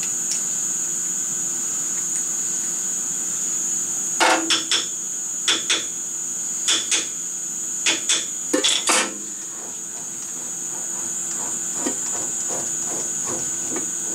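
Sharp metal-on-metal clanks, about a dozen between four and nine seconds in, as hand tools are handled and set down on a benchtop metal lathe. Then lighter quick clicking as the screw-on three-jaw chuck is turned off the spindle by hand. A steady high-pitched whine sits underneath.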